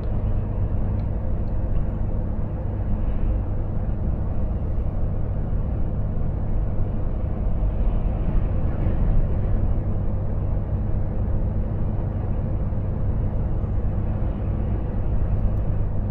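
Volvo FH460 truck's 13-litre six-cylinder diesel running steadily at a constant cruise of about 50 km/h, heard inside the cab with tyre and road noise.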